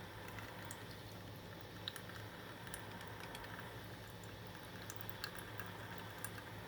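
Black+Decker Brew 'n Go single-serve drip coffee maker heating its water to brew: faint, irregular small ticks and crackles over a steady low hum.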